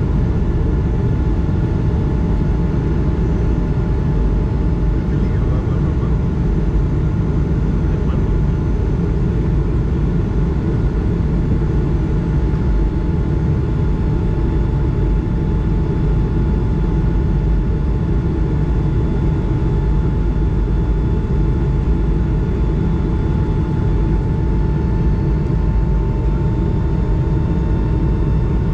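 Steady in-cabin noise of an Airbus A220 climbing out after takeoff, heard beside the engine: a dense low rumble with the Pratt & Whitney PW1500G geared turbofan's steady whining tones above it, one of them growing a little stronger near the end.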